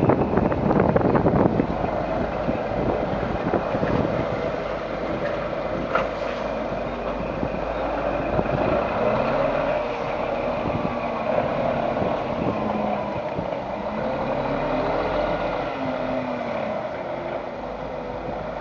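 Scania R420 truck's diesel engine running at low revs, with its note rising and falling slightly in the middle. A single sharp click comes about six seconds in.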